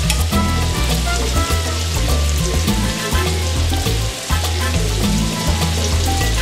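Shrimp sizzling in oil in a skillet as they are turned over, under background music with a strong bass line.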